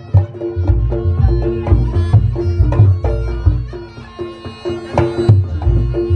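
Reog Ponorogo gamelan accompaniment playing a driving rhythm. Deep kendang drum strokes and repeated pitched gong notes sit under a shrill slompret shawm.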